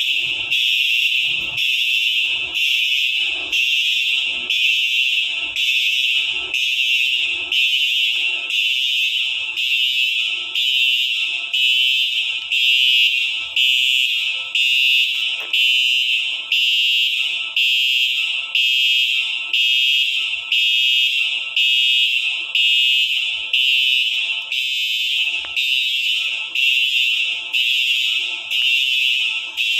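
Building fire alarm sounder going off during a test: a loud, shrill, continuous alarm tone pulsing about once a second.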